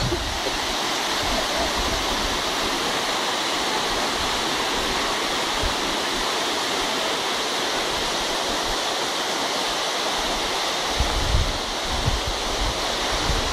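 Steady rushing roar of the Jana waterfall's falling water, with wind buffeting the microphone in low rumbles near the end.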